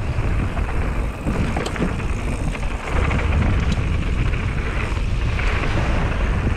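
Wind rushing over the camera microphone and mountain bike tyres rolling fast down a dirt and gravel trail, with scattered clicks and rattles from stones and the bike.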